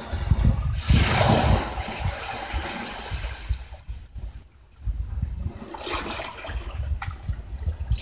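Sea wash surging up a narrow sandy channel between granite boulders and draining back. A hissing rush of water peaks about a second in and dies away by about four seconds, then builds again, with wind rumbling on the microphone.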